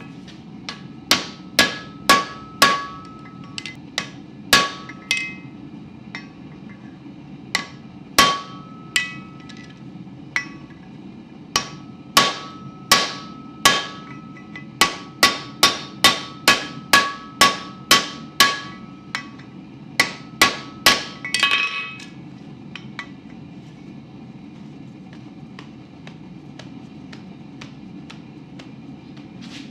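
Hand hammer striking a rivet on an anvil, setting (peening) the rivet that joins a pair of blacksmith's tongs: a long run of sharp, ringing metal blows at an uneven pace that stops about two-thirds of the way through, over a steady low hum.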